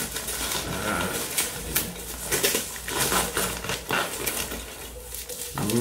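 Packaging rustling and crinkling while small items are lifted out of a parcel: irregular crackles and light taps.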